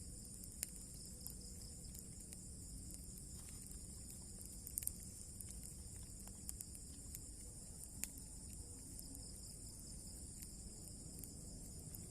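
Steady high-pitched chorus of crickets and other insects at dusk, with a few sharp clicks scattered through.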